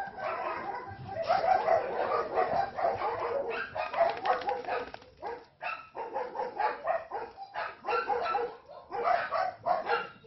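Puppies and a small dog barking and yapping in quick, overlapping runs as they play-fight, with a short lull about five and a half seconds in.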